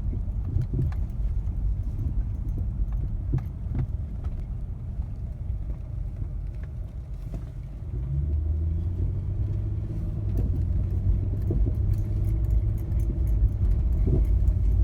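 2003 Infiniti G35 sedan driving, with steady road and engine rumble in the cabin and scattered short knocks from the front end: the clunk the owner is chasing. The rumble grows louder about eight seconds in.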